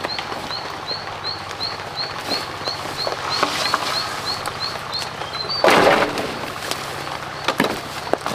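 Footsteps through dry brush and undergrowth on a slope, with a loud brief crash of vegetation a little past halfway and a few sharp twig snaps near the end. Behind them, a short high chirp repeats about three times a second for the first five seconds.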